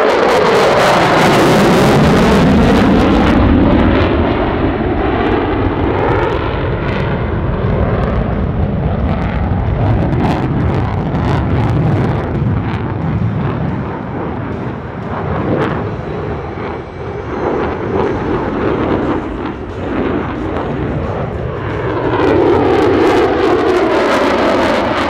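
F-35A Lightning II fighter jet's engine noise as it flies a hard-banking demonstration pass: a sweep falling in pitch as it goes by in the first few seconds, a steady rumble through the middle, and rising again as it approaches once more near the end.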